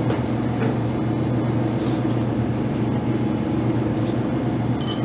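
Steady low mechanical hum, with a few faint brief clicks as activated carbon is spooned into an upturned soda-bottle filter. A short bright rattle comes near the end.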